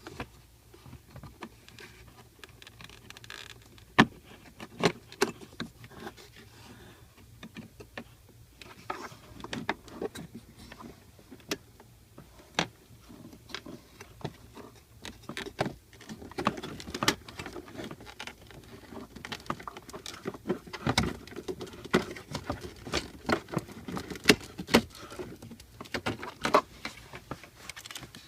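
Irregular clicks, taps and light rattles of hard objects being handled, scattered at first and coming thicker and louder in the second half.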